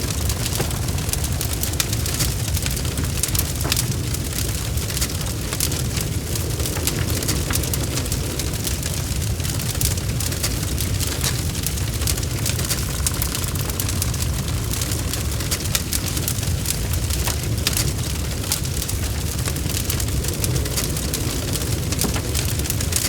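Fireplace fire crackling, with many small irregular pops over a steady low rumble.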